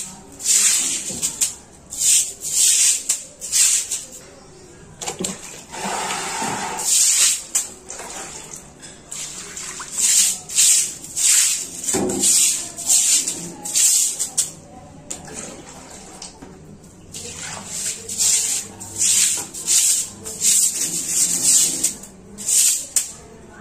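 Stiff broom scrubbing a wet tiled floor in quick, rhythmic swishing strokes, about three every two seconds. Water from a mug splashes onto the floor for a moment a few seconds in, and there is a single knock near the middle.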